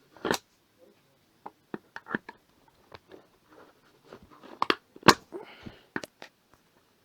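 Irregular sharp clicks, knocks and crackling from hand tools working on a microwave oven's metal and plastic parts as it is stripped, with the loudest knocks a little after halfway.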